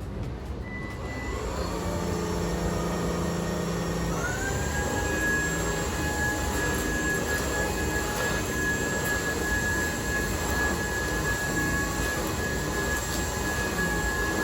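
UNINELL UV3 cordless stick vacuum running. Its motor whine rises to a higher pitch about four seconds in, then holds steady over the rushing suction noise.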